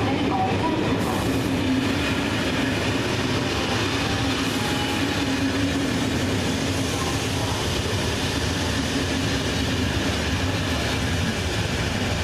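TER passenger coaches rolling past along the platform. A steady, continuous noise of steel wheels running on the rails.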